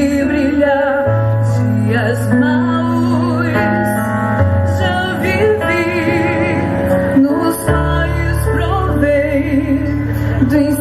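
Orchestra playing a slow, tender hymn: long sustained bass notes that change every few seconds under a wavering melody line.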